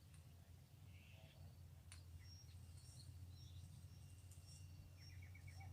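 Quiet outdoor ambience: faint bird chirps over a low steady rumble, with one click about two seconds in and a rapid ticking trill near the end.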